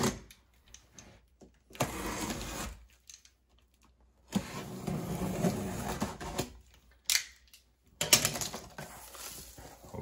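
A large cardboard box being cut open and pulled apart: several bursts of scraping and rustling cardboard and packing tape, each a second or two long, with short quiet gaps between.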